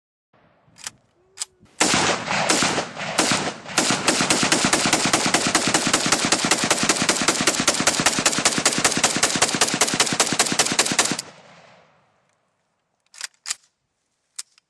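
Automatic firearm firing a few quick shots, then a long full-auto burst of about seven seconds of rapid, evenly spaced shots that stops abruptly. A few light mechanical clicks come before the shooting and again near the end.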